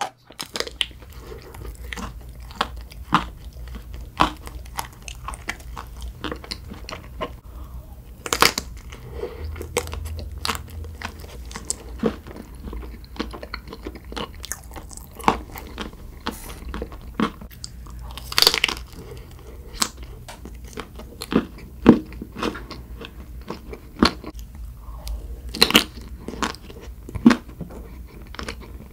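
Close-miked eating of chocolate-coated ice cream KitKat bars: irregular crisp crunches as the coating and wafer are bitten, with wet chewing in between, over a faint steady low hum.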